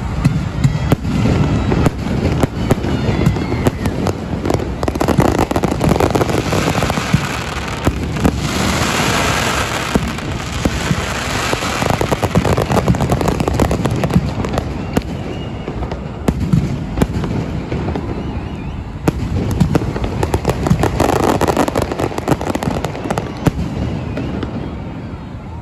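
Fireworks display going off without a break: rapid, irregular bangs of shells and effects, overlapping one another. There is a stretch of dense crackling about a third of the way in.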